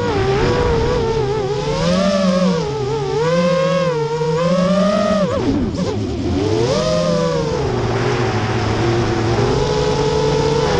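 Brushless motors and 5045 propellers of a QAV210 racing quadcopter whining, heard from the GoPro Session on its frame; the pitch rises and falls with the throttle. About five seconds in the throttle drops, the whine sags low, then it climbs back.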